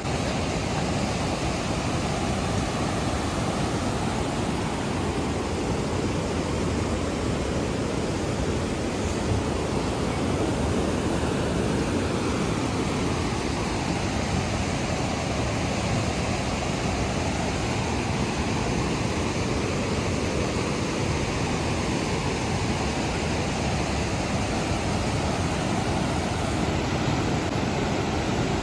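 Flooded Sainj river rushing past in spate: a steady, unbroken noise of fast, heavy water.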